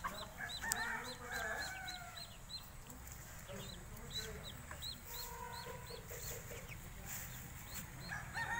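Helmeted guineafowl calling, with a run of calls about a second in and another near the end. Under them runs a steady series of high, short chirps, about three a second, that fades out about three-quarters of the way through.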